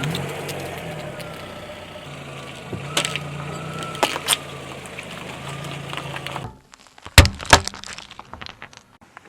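Car engine running steadily with a wavering whine, broken by a few sharp cracks as objects are crushed under its tyres. The engine sound cuts off abruptly, followed by two loud sharp snaps and some smaller crackles.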